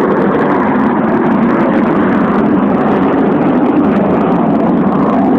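Fighter jet engines flying overhead, a steady, loud rushing noise.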